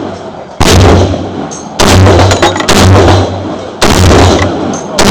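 Semi-automatic .308 M14-type rifle firing four shots in quick, uneven succession, each with a ringing echo that dies away over about a second.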